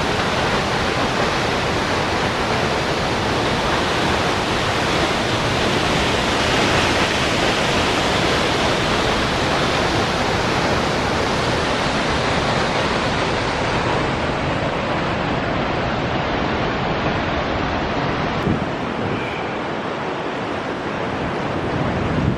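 Mooney Falls, a waterfall of about 200 feet, heard close by: a loud, steady rush of falling water. The hiss in the high end thins out about halfway through, and the level dips slightly near the end.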